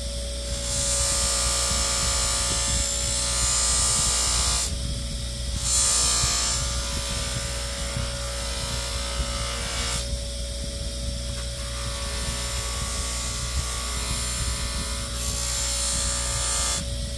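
A small power tool running steadily, with a harsh sanding hiss that comes and goes in stretches of a few seconds as the knife is worked against it.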